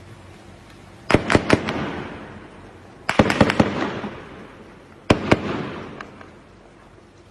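Three bursts of sharp bangs, about two seconds apart, each a quick cluster of several cracks that echo and fade over about a second.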